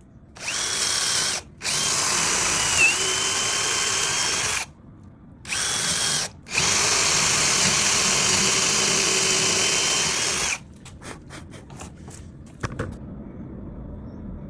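Electric power tool running at a steady high whine on wood, in several stretches that start and stop abruptly. Near the end come a few light clicks and knocks.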